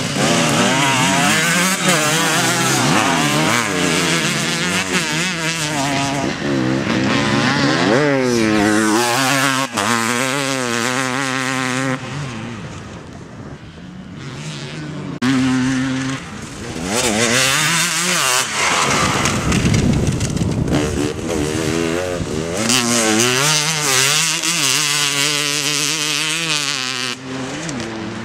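Enduro dirt bikes racing on a cross-test course, engines revving up and dropping back again and again through gear changes and turns. They fade for a few seconds about halfway through, then another bike comes close and loud.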